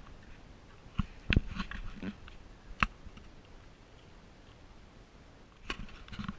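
Footsteps crunching on a rocky, gravelly trail, with a few sharp knocks on stone in two bursts, one about a second in and one near the end.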